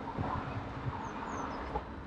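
Steady wind and rolling noise from a bicycle ride along a city street, with a few soft knocks and some short, high bird chirps about a second in.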